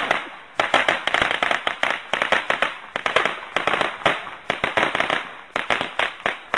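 A long string of firecrackers going off: rapid, irregular sharp bangs, many a second, in bursts with short lulls between.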